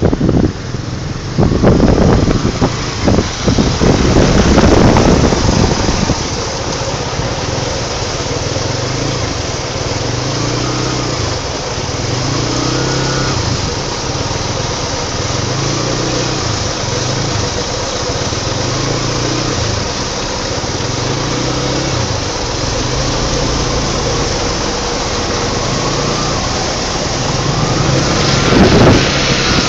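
A motor vehicle's engine running steadily as it moves through shallow floodwater, its low note swelling and falling about every two seconds. Loud wind buffeting and water noise fill the first six seconds, and there is a louder surge just before the end.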